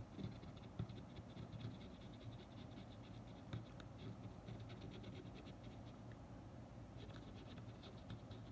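Cotton swab scrubbing inside a Sony Walkman WM-EX85 cassette mechanism, cleaning off sticky residue: faint, quick scratching in three spells.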